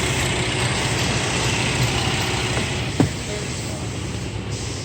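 The 3.6-litre V6 of a 2011 GMC Acadia idling steadily, with its purge solenoid's hose and electrical connector unplugged. A short knock about three seconds in, after which the sound is slightly quieter.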